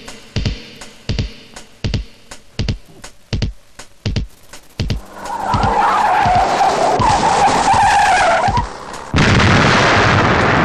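Film soundtrack: a steady beat of low thumps, then a loud rushing noise with a wavering whistle swelling in about halfway, breaking off for a moment and coming back suddenly louder near the end.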